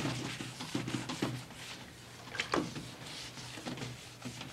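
Cloth wiping a ferrous sulfate solution onto an oak barrister bookcase, with a faint rubbing hiss and a few light knocks and taps against the wooden frame, the loudest about two and a half seconds in.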